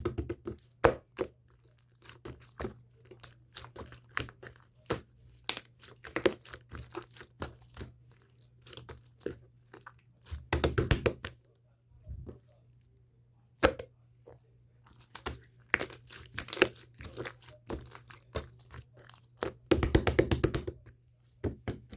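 Small objects handled on a wooden desktop: scattered taps and clicks, with two bursts of quick crackling, like paper or plastic being crumpled or torn, about ten seconds in and again near the end. A steady low hum sits underneath.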